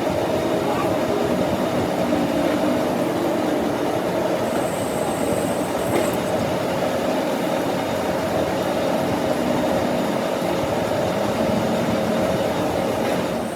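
A machine running steadily and loudly, with a constant hum and no pauses.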